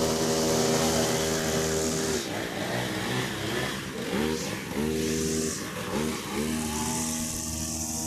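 Small petrol engine of a handheld cutting tool running steadily, then dropping back after about two seconds and revved up briefly four times, each rev rising in pitch, with a hiss up high coming and going.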